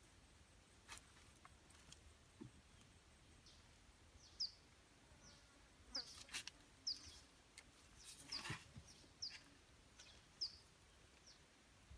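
A small bird calling with short, high chirps, one every half second to a second, starting a few seconds in, over near silence. A few light wooden clacks come from sticks being laid onto a stick frame.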